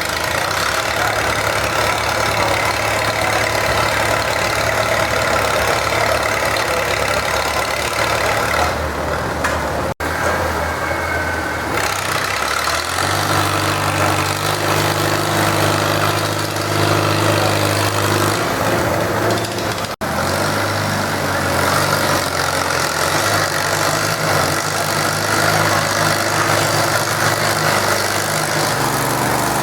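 Farm tractor engine running steadily during a deadweight pull; its note steps up to a higher pitch about 13 seconds in. The sound drops out sharply for an instant twice.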